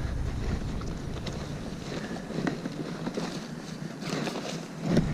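Footsteps on loose, rounded river cobbles, stones clicking and shifting underfoot, with wind rumbling on the microphone that eases after about a second and a half.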